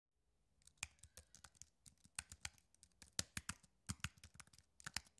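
Computer keyboard keys being typed one at a time: faint, irregular clicks about four a second, starting just under a second in.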